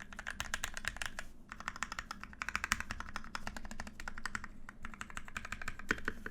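Fast typing on a custom NK65 Entry Edition 65% mechanical keyboard with lubed and filmed Gateron Yellow linear switches and PBT keycaps: a quick, steady run of keystrokes.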